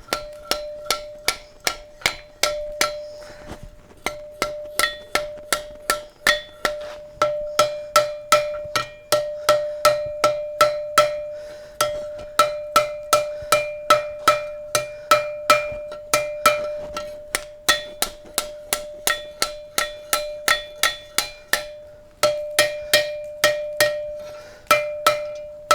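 Blacksmith's light hammer striking half-inch square steel bar on an anvil, about three blows a second in runs with a few short pauses, each blow leaving a steady metallic ring. The blows are upsetting the bar's scarfed end back into itself.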